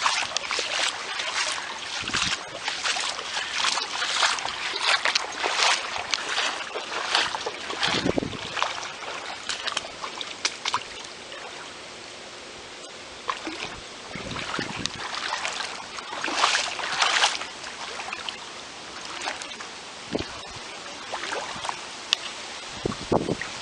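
Floodwater splashing and sloshing in quick, irregular bursts, busiest in the first eight seconds and again about two-thirds of the way through, with calmer stretches between and a few dull low thumps.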